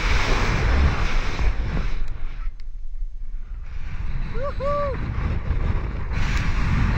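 Rushing wind buffeting a handheld action camera's microphone during a bungee jump's fall and rebound. The rush eases for about a second near the middle, and the jumper gives two short whooping cries a little after.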